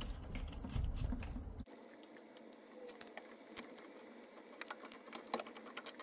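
Light, irregular clicks and taps of hands and channel-lock pliers on the brass valve fittings as the plastic pre-filter is threaded back into a tankless water heater.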